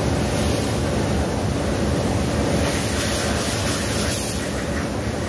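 Steady rush of a high-pressure water jet spraying and splashing against the side of a diesel locomotive.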